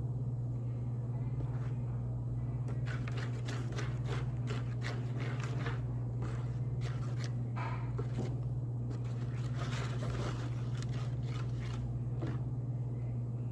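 Scattered clicks and scrapes of hands handling slime-making supplies and a container, over a steady low hum.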